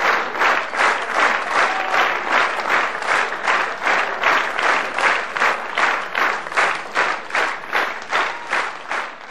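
Theatre audience applauding in rhythmic unison, about two claps a second, fading toward the end.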